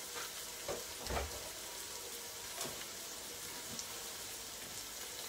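Chopped onion and garlic frying in olive oil in a stainless steel pan: a steady sizzle, with a few soft knocks about a second in and again in the middle.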